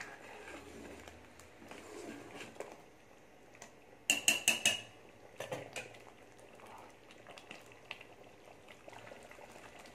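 A steel ladle clinks and scrapes against a metal pot while stirring thick chicken gravy, with a quick run of ringing clinks about four seconds in and a few more a second later. Between them the simmering gravy bubbles faintly.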